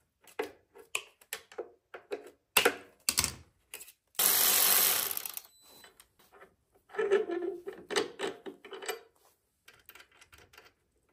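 Tools and metal bike parts being handled: scattered clicks and knocks, a loud harsh noise lasting about a second around four seconds in, and a quick run of clicking from about seven to nine seconds in.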